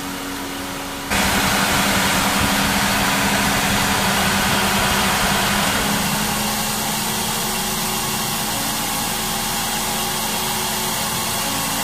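Electric radiator cooling fan, an ACR30 Estima unit fitted in place of the belt-driven fan, running with a steady rush of air over the idling engine. The rush comes in suddenly about a second in and then holds steady.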